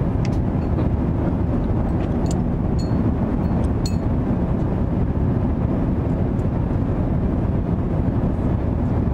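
Steady cabin noise of an Airbus A350-1000 airliner in flight: an even, low rumble. A few light clinks of a small dish come in the first four seconds.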